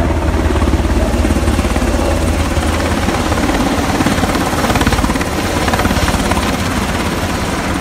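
Helicopter flying low overhead: a loud, steady, rapid beat of its rotor blades.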